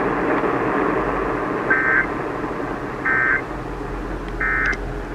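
Emergency Alert System end-of-message data bursts: three short, identical bursts of rapid two-tone digital warbling, about 1.3 seconds apart, marking the end of the warning. They play over the steady hiss of weather-radio reception.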